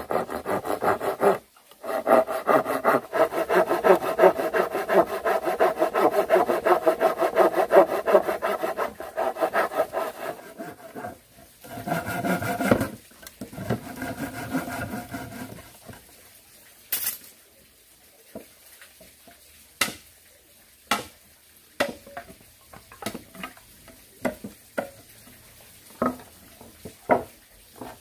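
Wood being sawn by hand: a long run of quick strokes for about ten seconds, then two shorter bursts. After that, scattered light knocks and taps on wood.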